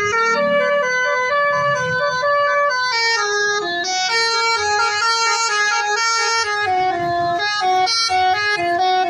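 Bus's multi-tone Basuri "telolet" horn playing a long, winding melody of quick stepped notes, the "mengular" (snaking) style of play.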